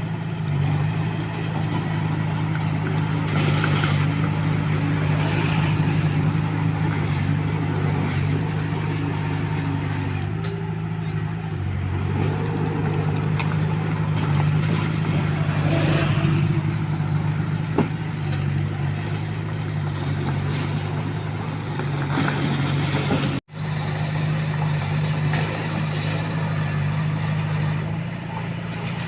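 Komatsu D21A small bulldozer's diesel engine running steadily under load while it works, a constant low drone. The sound cuts out for an instant about 23 seconds in, then carries on as before.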